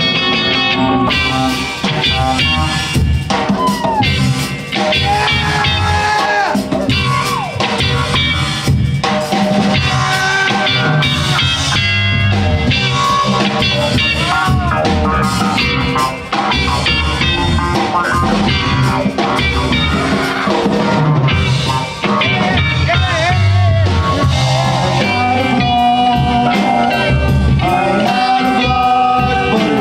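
Live rock band playing: electric guitar over bass guitar and drum kit, amplified through a stage PA.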